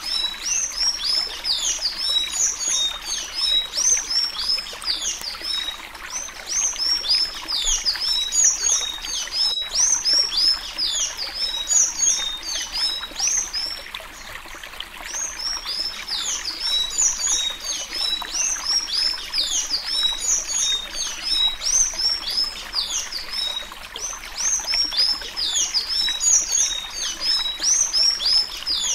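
Sanhaço azul (blue Thraupis tanager) singing the 'suí suí alagoano' song, a regional song style used to teach young birds: a long, fast run of high, squeaky, slurred notes that eases off briefly near the middle and then resumes.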